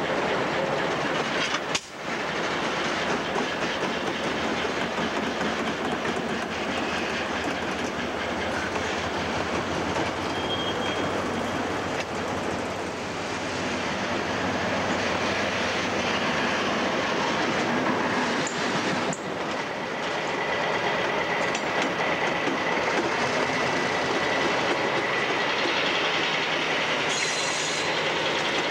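Diesel locomotives running and moving along the track, a steady loud mechanical noise that shifts at two cuts between scenes, about two seconds in and about nineteen seconds in. A steady high tone joins in the last third.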